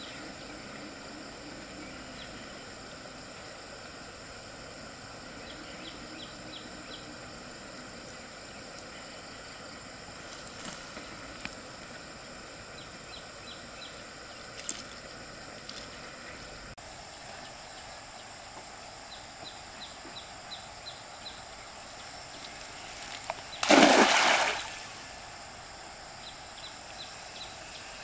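Stream water running over steady faint high-pitched outdoor noise, with a few small ticks. Near the end comes one loud splash lasting about a second.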